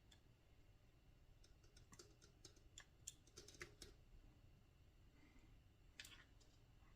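Faint scattered light clicks and ticks of a hand driver and small metal screws as four screws are snugged and tightened into a model helicopter's side frame.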